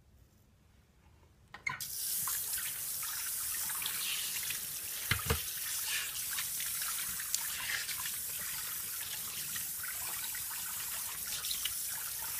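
Water tap turned on about two seconds in, running steadily into a sink, with occasional small splashes as water is cupped onto the face to rinse off shaving lather.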